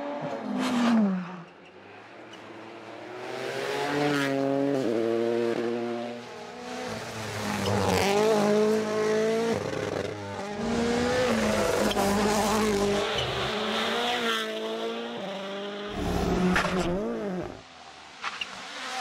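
Turbocharged four-cylinder rally car engines at full throttle, revving up and dropping sharply through quick gear changes over several passes, with some tyre squeal.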